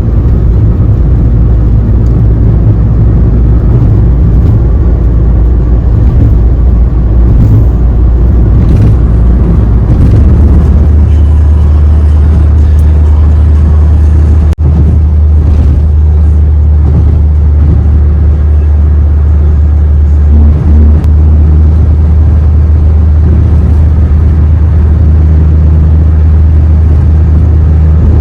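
A car driving at highway speed: a loud, steady, low road-and-wind rumble, which deepens about ten seconds in.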